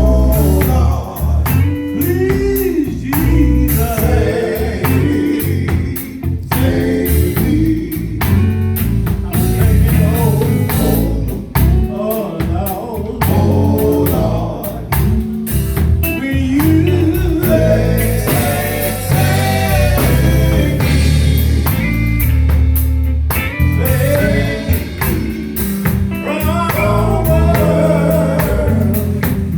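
Gospel music: singing over electric guitar, a steady bass line and a drum kit keeping a beat.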